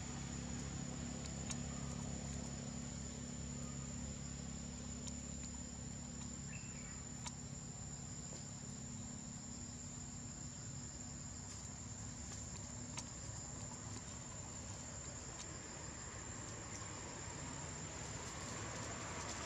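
Insects droning: one steady, high-pitched trill. Under it is a low hum that fades out about eight seconds in.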